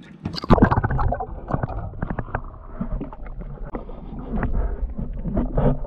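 Water sloshing and gurgling heard through a camera held under the surface, as a smallmouth bass is held in the water by hand. The sound is dull and muffled, with small splashes and knocks.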